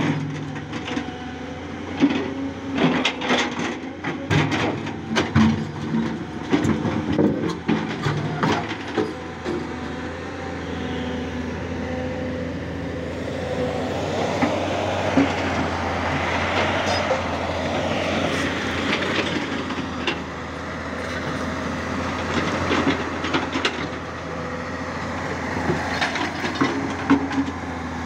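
Tata Hitachi EX200LC excavator's diesel engine running with a steady hum, under repeated clatter and knocks of the steel bucket and stones for the first several seconds. Around the middle it turns to a denser, steadier grinding rush, with scattered knocks returning near the end.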